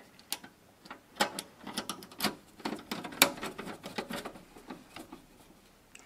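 Screwdriver turning a Torx screw into the steel covering plate of a PC case: a run of small, irregular metal clicks and ticks as the bit works in the screw head and the screw threads in.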